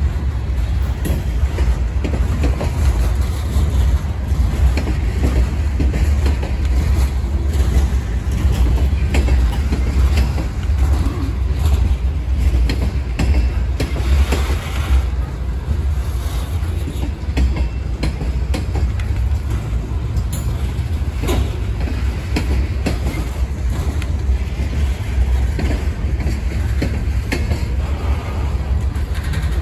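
CSX freight train's open-top hopper cars rolling past: a steady low rumble of steel wheels on rail, with frequent clicks and clanks from the wheels over rail joints and the cars' couplers and bodies.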